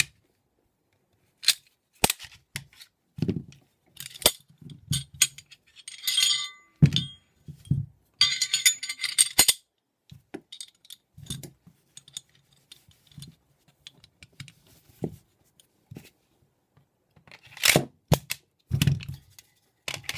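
Glock 24 pistol being taken apart and put back together by hand: a long run of clicks and clacks as the slide, barrel and recoil spring come off and go back on and parts are set down on a mat. Two longer rattling stretches come about six and eight seconds in.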